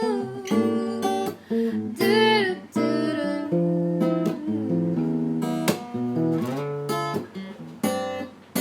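Music: acoustic guitar strumming chords as the instrumental lead-in to a love song, with a wavering held note about two seconds in.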